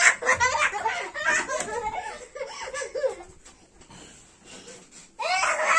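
Children laughing in high voices as they play tag. The laughter dies down about three seconds in and breaks out again loudly near the end.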